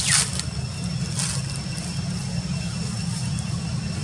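A steady low engine rumble, with a thin, steady high tone above it and two short, high chirps, the louder right at the start and a fainter one just over a second in.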